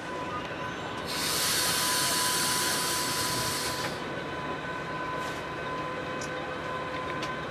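Passenger train rolling slowly, heard from inside a carriage, with a thin steady squeal from the wheels. A loud hiss starts about a second in and lasts about three seconds.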